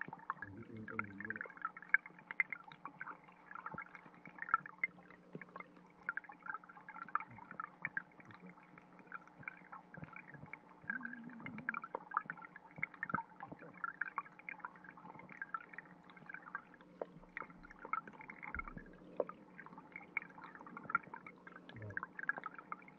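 Stream water heard underwater through a submerged GoPro: a dense, irregular patter of small clicks and pops from the water trickling over rock, over a faint steady hum, with a few brief low gurgles.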